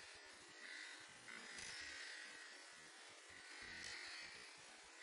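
Faint buzzy hiss of footfalls from running in place on a rug, played back slowed down five times, so each landing is stretched into a soft swell that comes about every two seconds.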